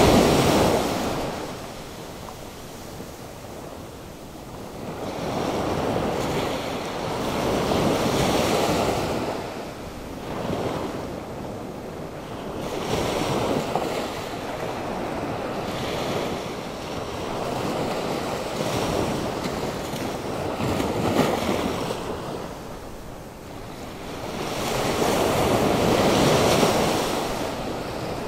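Atlantic Ocean waves breaking in storm-driven surf, rising and falling in surges every several seconds.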